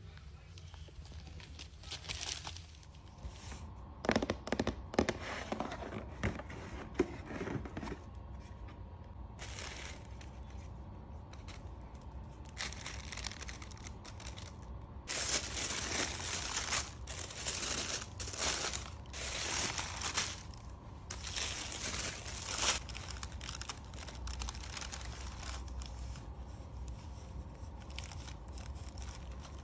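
Tissue paper and a cloth dust bag crinkling and rustling in bursts as a shoe box is unpacked, loudest between about fifteen and twenty-three seconds in. A few sharp clicks of small hard pieces come about four to eight seconds in.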